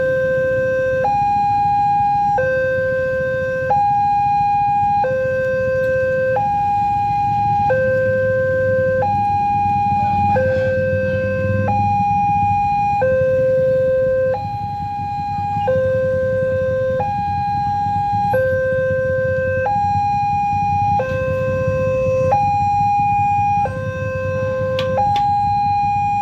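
Railway level-crossing warning alarm sounding a steady electronic two-tone signal. It switches between a higher and a lower tone about every one and a quarter seconds, the warning that a train is approaching and the road must be closed.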